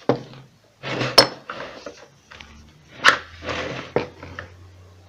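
Screwdriver working at the metal housing of a submersible water pump: scraping with several sharp metallic clicks and clinks.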